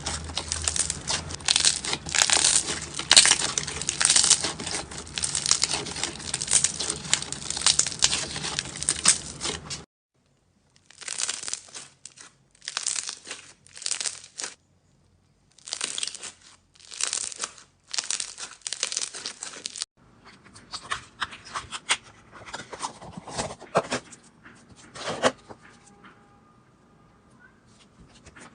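Slime being squished and stretched by hand, a dense wet crackling. About ten seconds in it turns to separate short squishes with dead silence between, then fainter crackling that dies away near the end.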